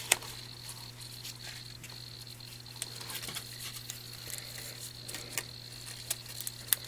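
Faint handling sounds: a few light clicks and taps as small cardstock pieces and a roll of glue dots are handled, over a steady electrical hum.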